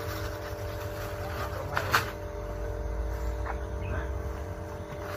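Steady low hum of a running motor, with one short sharp noise about two seconds in.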